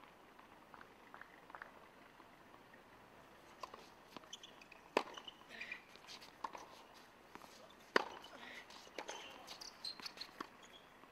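Two sharp knocks about three seconds apart, a tennis ball striking the hard court between points, with fainter short high chirps around them.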